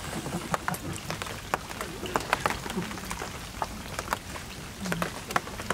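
Light rain falling: scattered drops tapping irregularly on the river water and nearby surfaces.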